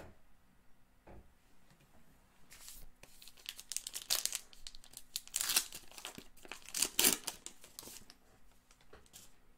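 A trading card pack's wrapper being crinkled and torn open by hand. It comes as a run of crackling rips that starts a few seconds in, is loudest around the middle and again near the end, then stops.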